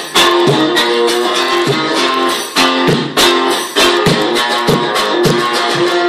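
Acoustic guitar strummed fast and hard, a rapid run of sharp, percussive strokes with chords ringing between them.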